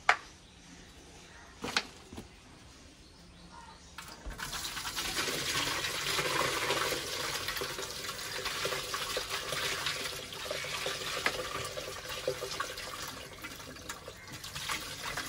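Watery food waste, soaked overnight, pouring and splashing from a plastic bucket into the plastic inlet bowl of a home biogas plant, starting about four seconds in. Two short knocks come before the pour.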